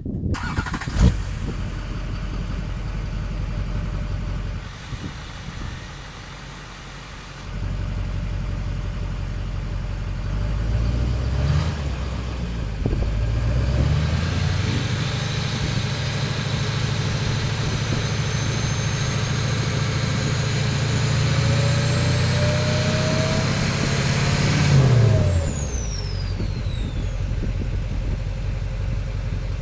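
Duramax LLY 6.6-litre V8 turbodiesel running, then brought up to higher revs and held there while its turbo whistle climbs steadily in pitch. The revs then drop, and the whistle falls away quickly as the turbo spools down, leaving the engine idling.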